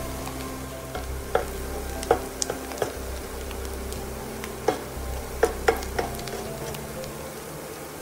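Käsespätzle and onions sizzling as they fry in a nonstick pan, with a slotted spatula knocking and scraping against the pan in a series of sharp taps, several of them bunched just past the middle.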